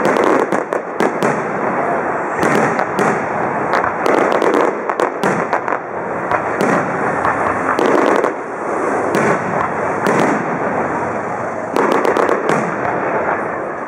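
Fireworks display: aerial shells bursting in rapid, overlapping succession, many sharp bangs with no quiet gap between them.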